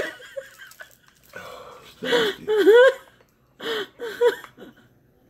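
Wordless, high-pitched vocal whines and wheezes with swooping pitch. A longer run comes about two seconds in and shorter ones near four seconds.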